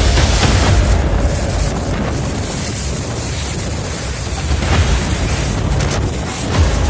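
Violent windstorm with hail pounding a house: a loud, continuous roar of wind, with scattered sharp hits from hailstones and debris.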